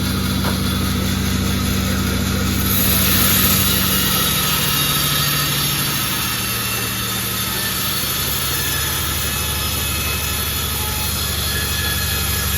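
Sawmill running steadily as it saws jackfruit wood, its motor humming low. About three seconds in, a loud high hiss joins in and holds as the blade cuts through the timber.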